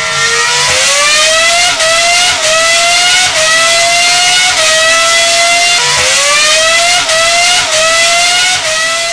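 Formula 1 car engine accelerating through the gears: a high engine note climbs steadily and dips sharply at each upshift, about once a second, with a deeper dip about six seconds in before it climbs again.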